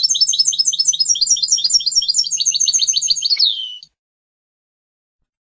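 European goldfinch singing a fast run of repeated high twittering notes, about eight a second. The run ends with a falling note a little before four seconds in and cuts off abruptly.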